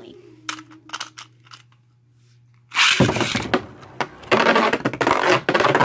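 Union Achilles Beyblade launched into a plastic Beystadium about three seconds in. The launch comes as a sudden loud burst, and the spinning top then clatters and scrapes loudly around the stadium, running off-balance in attack mode.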